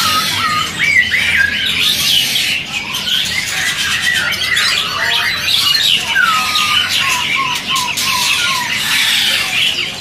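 Many caged songbirds calling at once: a dense chatter of squawks and chirps, with runs of short whistled notes that slide downward, one longer falling whistle about six seconds in and a quick series after it.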